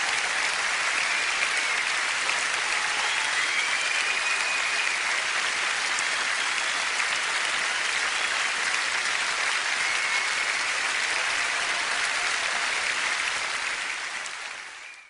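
Audience applauding with a few faint whistles, fading out near the end.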